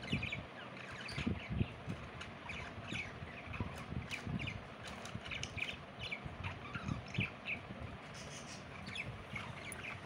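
Pet budgerigars chattering: a busy run of short, high chirps and warbles throughout, with some soft low thumps underneath.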